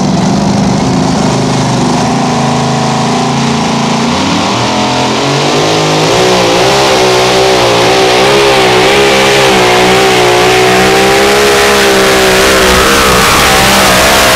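A modified two-wheel-drive pulling truck's engine idling, then revving up hard about five seconds in as it launches with the pulling sled. It holds high revs under load, the pitch wavering up and down as it pulls.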